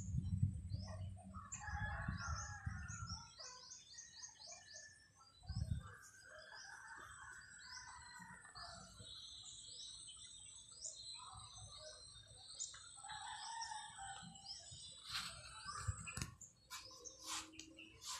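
Small birds chirping in quick repeated notes, with a rooster crowing. A low rumble comes in the first few seconds.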